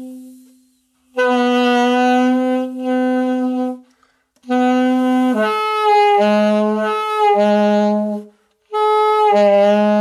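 Saxophone playing a held note twice, steady and full. About halfway through the tone changes and turns unsteady: the low part of the sound cuts in and out and the pitch wavers. This is the sound of the chin bunching up and pressing the reed toward the mouthpiece so less air gets through.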